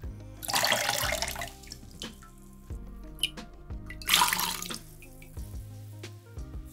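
Water gushing out of a soaked foam sponge as hands squeeze it, in two rushes: a longer one about a second in and a shorter one about four seconds in. Soft background music runs underneath.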